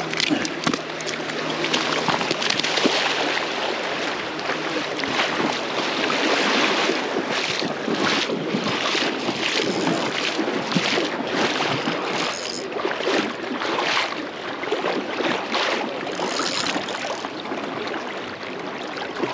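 Fast river current rushing and splashing around a wader's legs, with wind buffeting the microphone in uneven surges.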